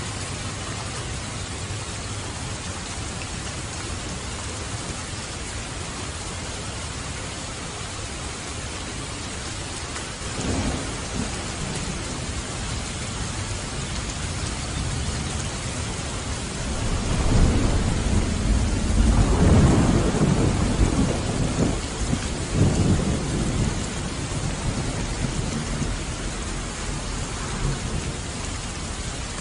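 Steady rain with a roll of thunder: a short rumble about ten seconds in, then a louder, longer deep rumble building from about seventeen seconds and fading over several seconds.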